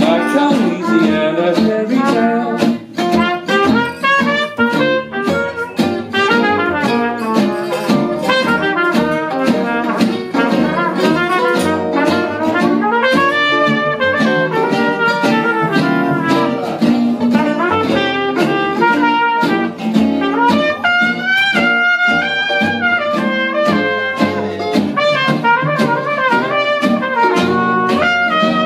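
Small acoustic jazz band playing an instrumental chorus: a trumpet carries the melody over strummed acoustic guitars and a plucked double bass.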